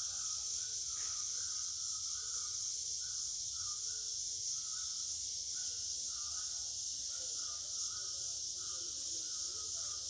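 Rainforest insect chorus: a steady high-pitched drone, with a short mid-pitched call repeating about twice a second.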